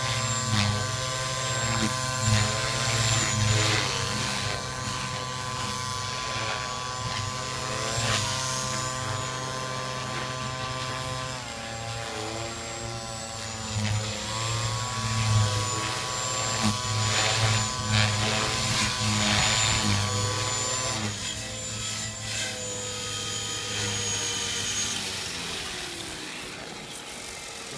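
Gaui X3 electric RC helicopter flying low passes: a high whine from its Scorpion brushless motor and drivetrain, with rotor-blade whoosh that swells and fades as it passes and dips in pitch twice midway. Near the end it sets down and the rotor spools down, the whine falling away.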